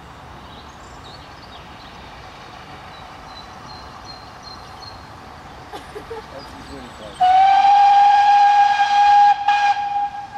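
Steam locomotive whistle of GWR 56XX 0-6-2 tank engine No. 5619, one long blast starting about seven seconds in: it slides up slightly at the start, then holds one steady, loud note for about three seconds. Before it there is only a faint steady background.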